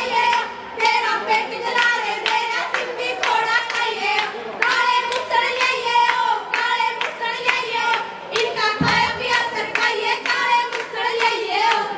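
Women singing a Haryanvi folk song together while clapping along in a steady beat, a few claps a second. One dull thump about nine seconds in.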